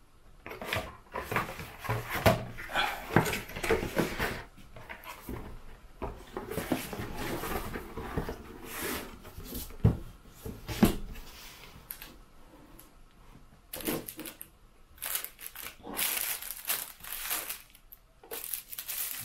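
Cardboard packaging being handled on a table: irregular knocks, scrapes and rustles as the box is shifted and its lid closed.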